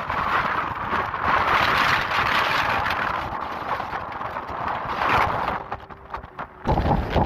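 Hurricane wind and rain rushing in gusts. It drops away briefly near the end, then comes back suddenly with a heavier, lower rumble.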